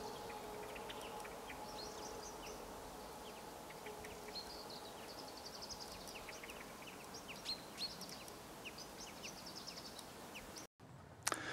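Faint birdsong from several small birds: many short high chirps and quick trills, over a faint steady hum that fades away partway through. The sound cuts off near the end, followed by a click.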